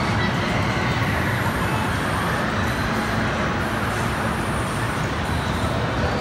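Steady din of an indoor amusement park, with a spinning swing-arm ride running.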